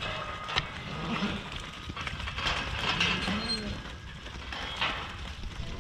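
Sheep bleating a few times.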